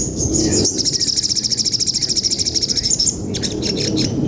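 Eurasian tree sparrow (burung gereja) in fighting song: a rapid high trill of about two seconds, then a few short separate chirps, over a low steady background rumble.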